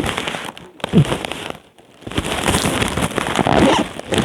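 Plastic air-cushion packaging being handled and crinkled, a dense loud crackling and rustling that drops away briefly in the middle.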